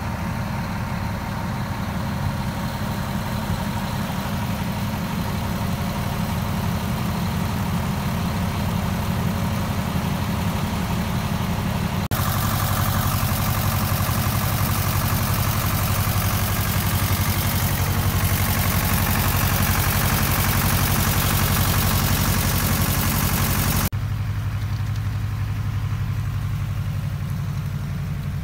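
A heavy engine running steadily at the concrete pour. The sound changes abruptly twice, about twelve and twenty-four seconds in, and the middle stretch is louder and brighter.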